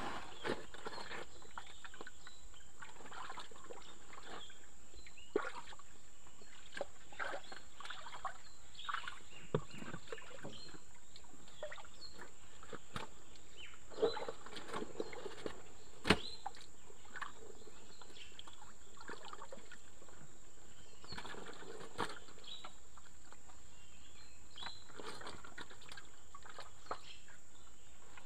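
Muddy ditch water sloshing and splashing as a man works by hand in the mud, with scattered clicks and knocks, the sharpest about two thirds of the way in.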